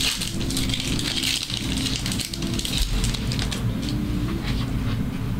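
Foil wrappers of trading-card packs crinkling and cards rustling as packs are ripped open and handled. The crinkling thins out about three seconds in to lighter ticks and taps.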